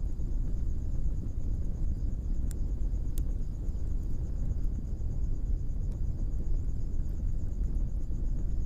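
Blacksmith's coal forge fire burning under its air blast: a steady low rumble, with two sharp pops about two and a half and three seconds in.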